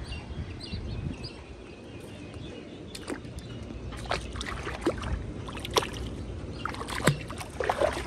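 Water splashing in short, irregular bursts over a low steady rumble, as she rinses sand off or moves through water. The splashes come more often in the second half.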